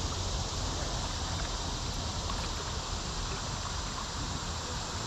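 Steady river ambience picked up by a kayak's bow-mounted camera: wind rumble on the microphone over a hiss of moving water, with a few faint ticks.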